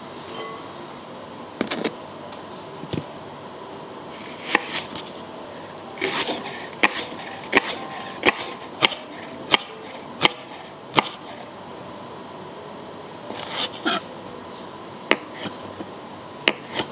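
Chef's knife chopping Japanese spring onion on a bamboo cutting board: a run of sharp knocks about one every 0.7 seconds as the blade strikes the wood, with a few scattered chops before and after.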